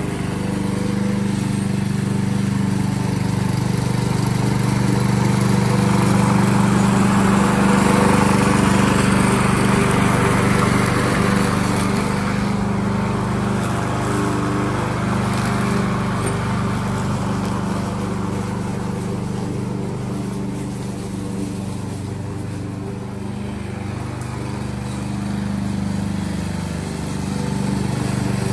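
Yardworks self-propelled gas lawn mower running steadily while cutting grass. Its engine hum holds one pitch and grows louder in the first half as the mower comes close, then eases off and rises again near the end.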